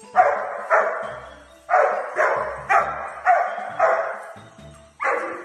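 A dog barking repeatedly, about eight barks in quick runs roughly half a second apart, each one echoing off the room's hard surfaces.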